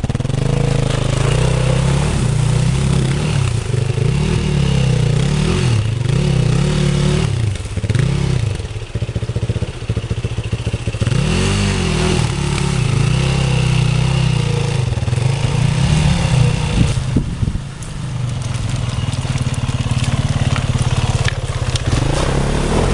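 Trail motorcycle engine revving, its pitch rising and falling again and again as the throttle is worked, with a brief dip about eight seconds in and again near eighteen seconds.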